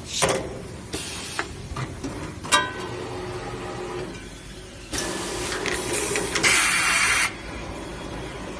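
2600 mm kitchen towel rewinding machine running, with several sharp mechanical knocks in the first few seconds and a loud hiss about a second long near the end.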